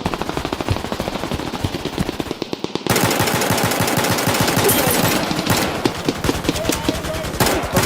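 Sustained automatic gunfire: rapid machine-gun bursts overlapping one another. About three seconds in, the fire becomes louder and denser, with another loud surge near the end.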